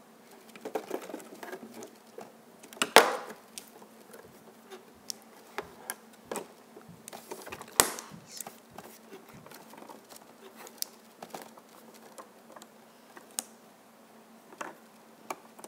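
Irregular clicks, taps and light knocks of small plastic StikBot figures being handled and set down on a plastic stage, with two louder knocks about three and eight seconds in, over a faint steady hum.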